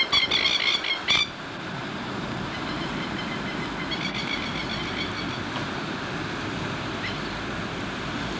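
A rapid chattering animal call, about eight pulses a second, that cuts off about a second in, then a fainter run of the same call a few seconds later, over a steady rush of wind and surf.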